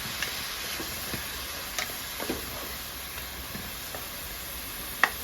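Chopped onion, garlic, scallion, celery and tomato sizzling steadily in hot olive oil in a pot, with scattered light scrapes and clicks of a stirring utensil and one sharp knock near the end.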